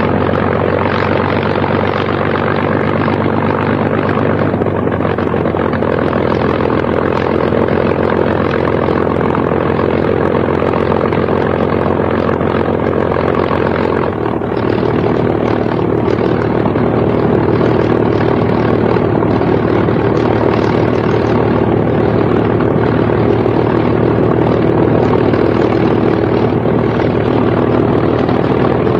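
P-51 Mustang fighter's liquid-cooled V-12 piston engine running with its propeller turning: a steady drone that changes tone about halfway through.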